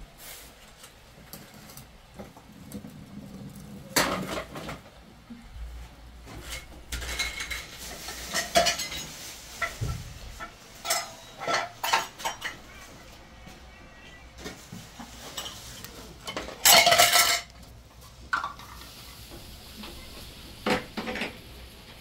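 Kitchenware being rummaged and shifted on cupboard shelves: dishes, bowls and containers knocking and clinking against each other in scattered bursts, with one louder clatter lasting about a second near three-quarters of the way through.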